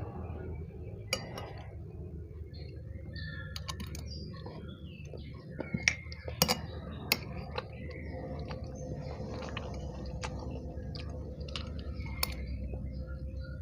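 Chewing and mouth sounds of someone eating seblak, with several sharp clinks of cutlery against a bowl or plate, the loudest in a cluster a little past the middle.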